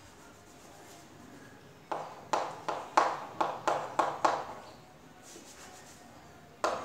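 Chalk writing on a blackboard: a quick run of about ten sharp tapping, scratching strokes over about two and a half seconds.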